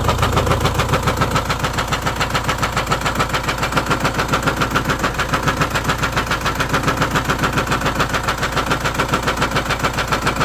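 Renault Espace dCi diesel engine running with a steady, rapid knock several times a second, a knocking noise whose cause the owner does not know.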